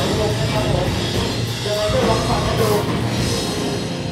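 Post-hardcore band playing live: electric guitars, bass guitar and drum kit going full out in a dense, loud wall of sound.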